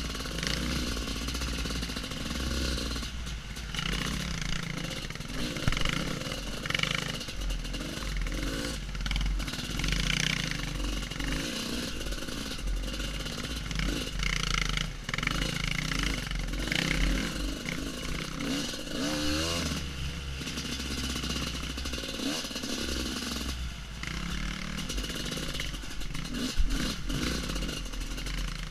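Husqvarna WR250 two-stroke enduro motorcycle being ridden along a rough dirt trail, the engine revving up and down with the throttle.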